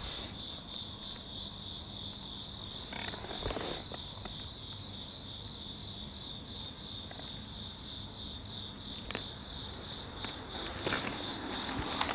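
Insects trilling steadily outdoors: an unbroken high-pitched drone, with a few soft knocks and rustles on top.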